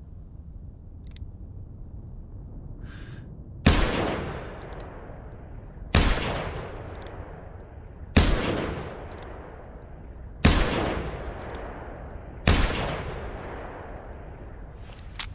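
A .44 revolver fired five times, roughly two seconds apart, each shot ringing out with a long fading echo. A faint click comes before the first shot.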